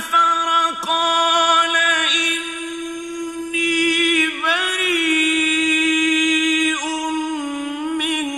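Solo male voice chanting Quranic recitation in melodic tajwid style, drawing out long held notes with wavering ornaments.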